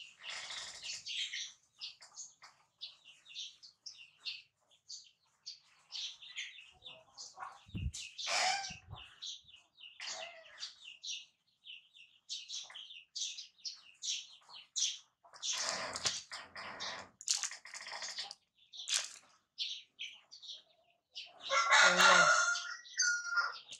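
Birds chirping over and over, with chickens clucking and a louder, longer fowl call near the end.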